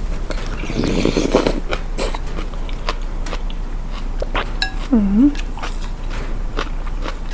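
Close-miked eating of a bowl of small rice noodle soup: chewing and slurping, with a noisy slurp about a second in and many small mouth and utensil clicks. A short hummed vocal sound comes about five seconds in, over a steady low electrical hum.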